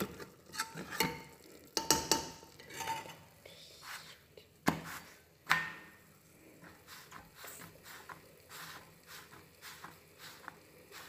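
Metal utensil clinking and scraping in an aluminium cooking pot, with two sharper clanks about five seconds in, then only soft light taps and rustling as a roti is pressed with a cloth on the flat pan.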